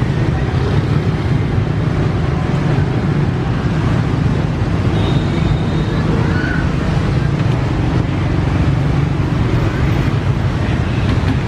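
Steady street traffic noise: a continuous low drone of passing engines with no breaks.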